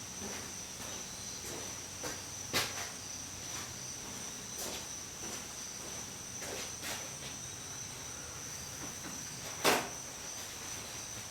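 Scattered light clicks and knocks of hand work at a car's rear wheel hub, the loudest about ten seconds in, over a steady high-pitched tone.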